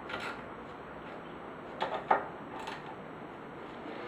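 Small ratchet and socket worked on the water pump housing bolts: a few short, separate metal clicks and knocks, one near the start and three more around two seconds in, over faint room noise.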